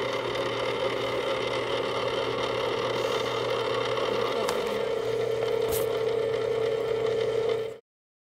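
Hobart stand mixer running steadily, its dough hook turning flour, water, yeast and honey in the steel bowl for the first brief mix that brings the dough together. A constant whirring hum that cuts off abruptly near the end.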